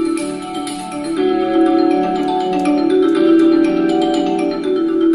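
Marimba-style mallet music playing through the AMOI G5 portable speaker alarm clock. It is being turned up with the top buttons and gets louder about a second in.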